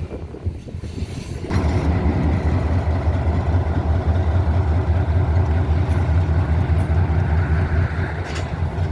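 A steady low engine rumble that starts abruptly about a second and a half in.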